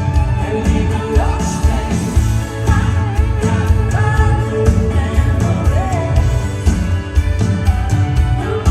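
Live band playing with a lead voice singing a sustained, gliding melody over a steady bass and drum beat.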